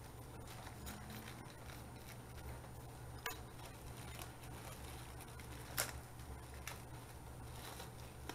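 A small plastic parts bag being handled and worked open by hand: light crinkling and scattered clicks, with two sharper clicks about three and six seconds in, over a low steady hum.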